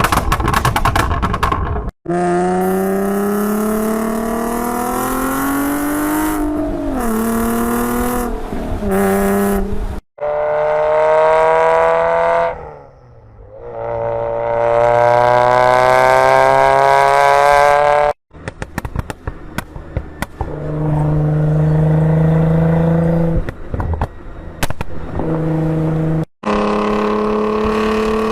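Sports car engines revving and accelerating hard in short clips cut together, the engine note climbing in pitch each time. Near the middle the pitch drops and then climbs again. In the later part the exhaust crackles and pops over a steadier lower note.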